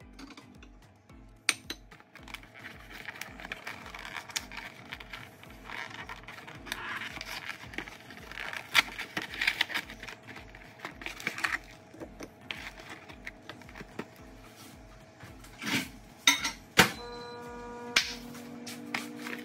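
Clatter of a glass plate and a cardboard box being set down and moved about on a hard kitchen countertop, then several sharp hand claps near the end, over faint background music.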